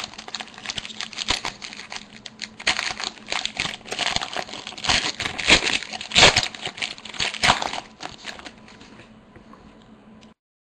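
A hockey card pack wrapper being torn open and crinkled by hand: dense, irregular crackling with sharp snaps, dying down after about eight seconds and cutting to silence just before the end.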